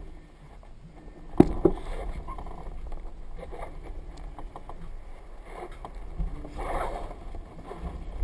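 Wind buffeting a camera mounted on the strut of a leading-edge inflatable tube kite in flight, with the kite's fabric and lines flapping and rustling. Two sharp knocks come about a second and a half in, and the rustling grows louder near seven seconds.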